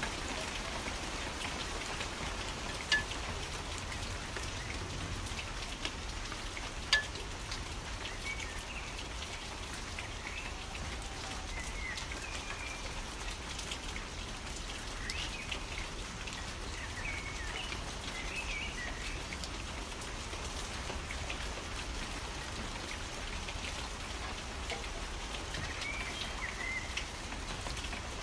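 Steady rain falling on a surface, with a couple of louder drips early on. Birds chirp faintly through it in short scattered calls, mostly in the middle and again near the end.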